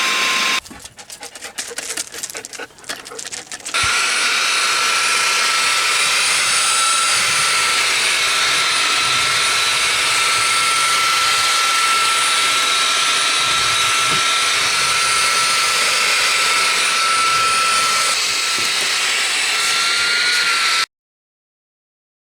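RedTiger VAC21 handheld vacuum running with a steady rushing noise and a high whine. About half a second in the motor noise drops out for three seconds of irregular clicks and rattles, then it runs steadily again, its whine rising slightly just before it stops abruptly near the end.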